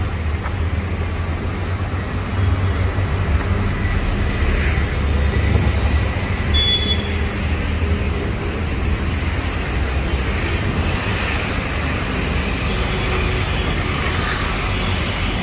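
Steady road traffic noise: a continuous low rumble of passing vehicles, with a brief high tone about seven seconds in.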